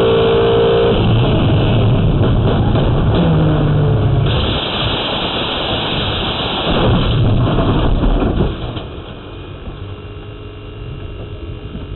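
Race broadcast audio of a V8 Supercar: a steady engine note for the first second, giving way to a dense, noisy rumble that dies down to a lower level over the last few seconds.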